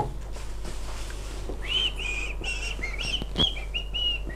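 A quick run of about eight short, high whistled notes starting about one and a half seconds in, with a single light click among them.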